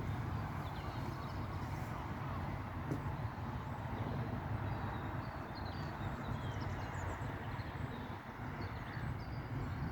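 Outdoor ambience: a steady low rumble under an even background hiss, with faint, short high chirps scattered through.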